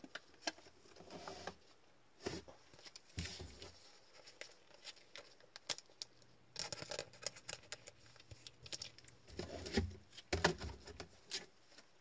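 Trading cards and plastic card sleeves being handled: scattered light clicks and short rustles, busiest in the middle and again around ten seconds in.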